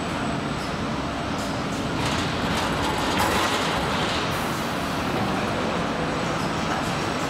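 Steady machinery noise on a car-body assembly line, with a louder hiss for a second or two about three seconds in.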